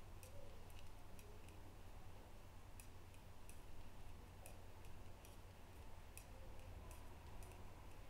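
Metal knitting needles clicking faintly and irregularly against each other as purl stitches are worked, over a low steady hum.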